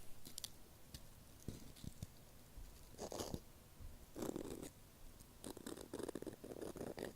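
Ear-cleaning ASMR: an ear pick scratching and rubbing right up against the microphone in short strokes. A few faint clicks come first, then single scraping strokes about three and four seconds in, and a quicker run of fine scratches near the end.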